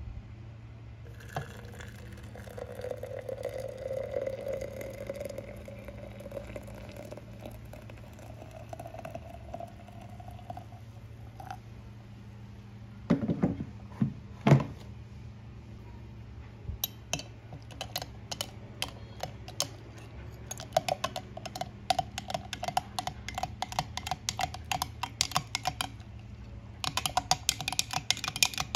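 Kitchen sounds: dishes and utensils clinking and tapping, with a slowly rising tone in the first third, two heavy knocks about halfway through, then quick runs of clicks and clinks to the end, over a steady low hum.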